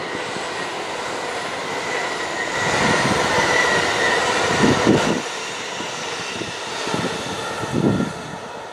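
LNER Class 800/801 Azuma high-speed train passing at speed: a steady rush of wheels on rail and air with a faint high whine, loudest for a couple of seconds as it goes by close, then easing off as it pulls away.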